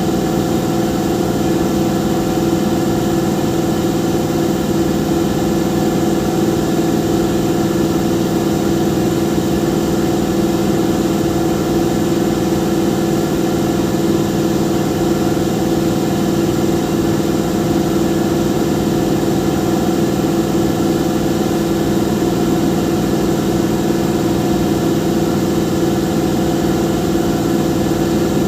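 Steady, loud drone of running machinery with a constant hum that does not change.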